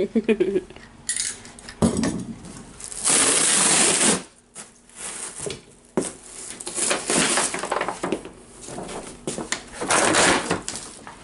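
Large cardboard shipping box being pulled open and worked off its contents by hand: the cardboard rustles, scrapes and knocks, with one long scrape lasting about a second about three seconds in.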